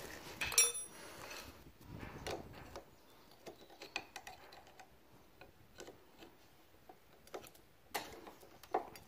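Irregular light metallic clicks and taps of a screwdriver working at a motorcycle's front disc brake caliper, loosening the brake-pad retaining bolts. The clicks are sparse in the middle, with a few louder ones near the end.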